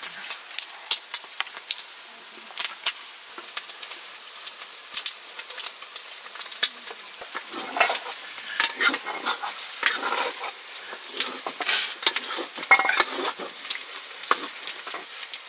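Irregular crackling and sharp clicks from a wood cooking fire with a pan on it, mixed with a metal fork clicking and scraping on an enamel plate of fried meat.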